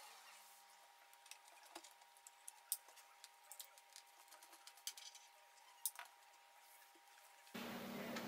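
Near silence with faint, scattered small clicks and taps of a precision screwdriver and laptop parts being handled.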